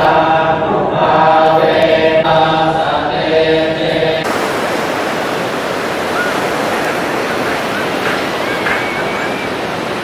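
Voices chanting together in a steady, droning unison, typical of Buddhist chanting in a temple. It cuts off about four seconds in to the steady rush of ocean surf washing onto a beach.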